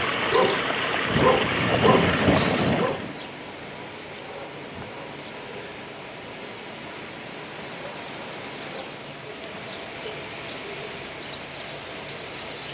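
Small stream splashing over a low drop in a stone channel, with a dog barking repeatedly over it. About three seconds in this cuts off to quieter outdoor ambience with a steady, pulsing high trill.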